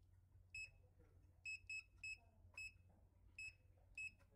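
Short, high-pitched key-press beeps from a hot runner temperature controller's touchscreen as its menu buttons are tapped: about seven in four seconds, some in quick pairs.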